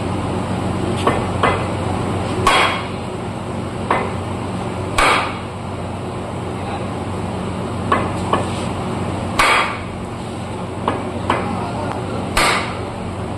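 Hammer blows, about eleven in groups of two or three, each group ending in its hardest strike, over a steady low hum.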